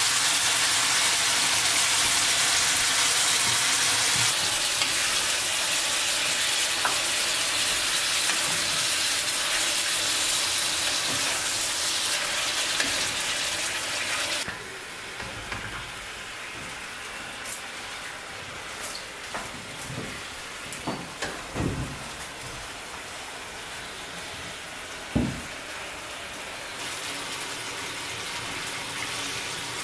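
Diced chicken breast sizzling in a frying pan, loud at first, then dropping abruptly to a quieter sizzle about halfway through. In the second half a wooden spatula scrapes and knocks against the pan as the chicken is stirred, with one sharper knock near the end.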